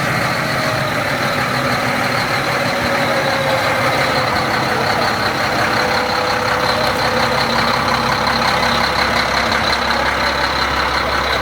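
Heavy machinery's diesel engine running steadily at a constant level, with a faint high whine over it.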